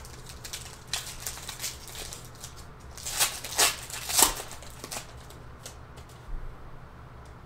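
Foil trading-card pack wrapper being torn open and crinkled by hand: a cluster of sharp crackles about three to four and a half seconds in, with lighter rustles and ticks before and after.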